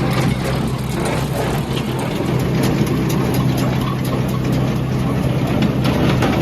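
Farm tractor engine running at a steady speed, with a dense rattling of machinery over the engine's hum.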